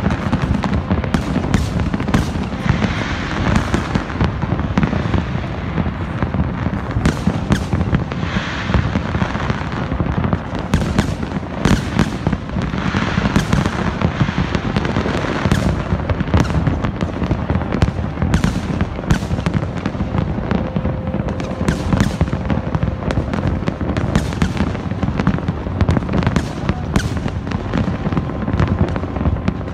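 Fireworks display: many shells bursting in quick succession, sharp bangs and crackles over a continuous low rumble.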